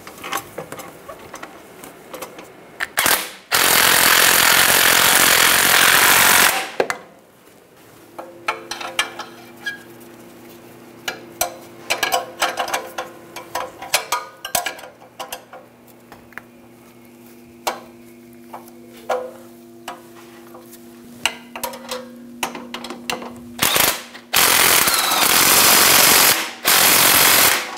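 Cordless impact wrench hammering exhaust flange bolts tight, in two bursts of about three seconds: one a few seconds in, the other near the end. Between them come scattered metallic clicks and clinks.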